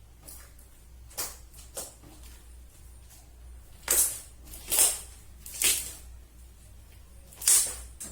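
Short, sharp squishes of slime being pressed by hand, about seven of them, the four loudest coming close together in the second half.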